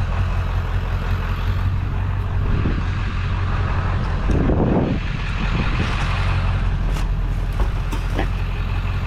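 Pickup truck engine idling with a steady low rumble, with a few light knocks and a brief louder noise about four and a half seconds in.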